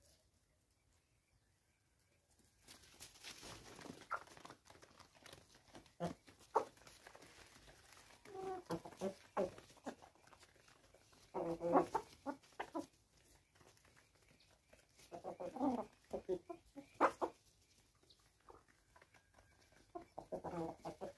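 Chickens clucking in short, scattered calls that start a couple of seconds in.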